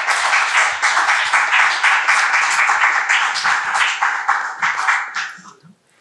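Small audience applauding with hand claps, dying away about five seconds in.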